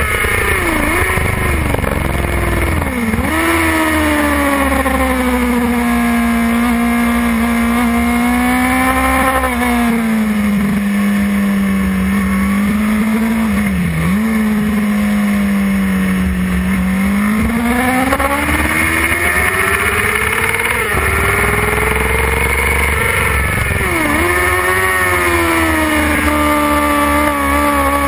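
Suzuki GSX-R 600's inline-four engine running hard on track, heard from onboard with wind noise. Its pitch falls in several quick steps near the start, holds steady for a long stretch with a brief dip midway, climbs again, then dips once more near the end.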